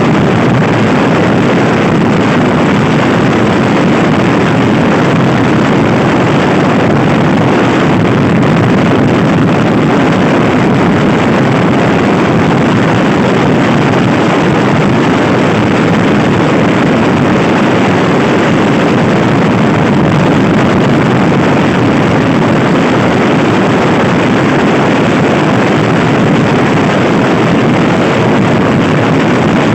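Loud, steady wind noise buffeting the microphone on a Honda Scoopy i scooter ridden fast, a constant rush with no clear engine note showing through.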